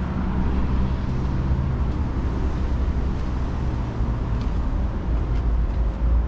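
Steady low rumble of outdoor urban background noise, with no single event standing out.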